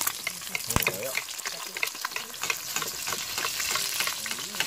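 Eggs frying in hot oil in a frying pan, sizzling steadily with fine crackling pops, while a spatula moves and scrapes in the pan. There is a single knock just under a second in.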